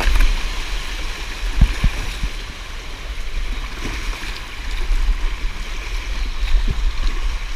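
Fast, shallow creek water rushing and splashing around a kayak's bow as it runs a rocky riffle, with a few short knocks.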